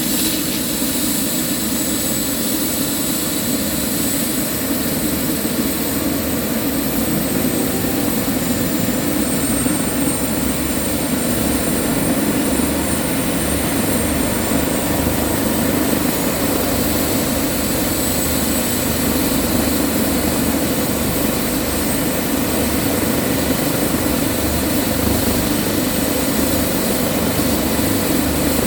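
Airbus ACH145 (BK117 D-3) twin-turbine helicopter running steadily: a high turbine whine over a pulsing low rotor rumble. The whine rises a little about a third of the way through and settles back.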